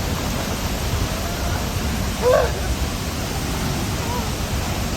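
Steady roar of La Fortuna waterfall's falling water. A person gives a short cry about two seconds in.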